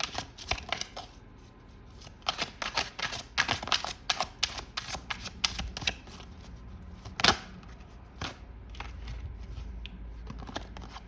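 A deck of tarot cards being shuffled by hand: a quick run of papery clicks and flicks for about the first six seconds, then a couple of single sharp card snaps and a quieter stretch.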